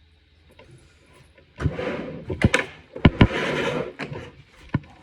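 The 1928 Wurlitzer accordion being handled and opened up to get at the reeds: sharp knocks and clicks with two stretches of rubbing or rushing noise, starting about a second and a half in and ending around four seconds.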